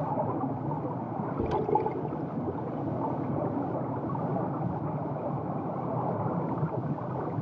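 Underwater ambience of water moving in murky, surging sea water: a steady rushing noise, with a single short knock about one and a half seconds in.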